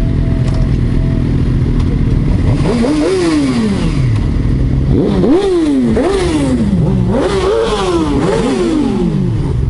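Sport motorcycle engines idling, with riders blipping the throttle: one rev about two and a half seconds in, then a quick run of overlapping revs, each climbing fast and falling away.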